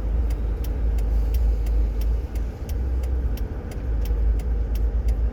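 Vehicle engine and road rumble, a steady low drone heard from inside the cab, with a faint regular ticking about three times a second over it.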